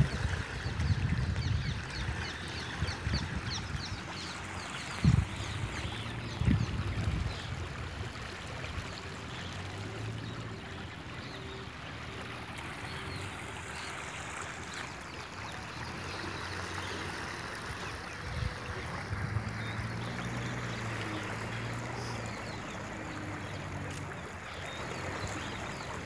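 River in full flow, its muddy water washing and lapping over a sandy bank in a steady rush. A few low bumps hit the microphone in the first seven seconds.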